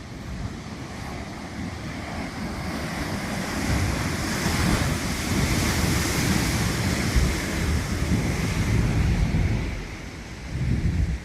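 Wind buffeting the microphone over the wash of sea surf. It swells through the middle, eases off near the end, then gusts once more briefly.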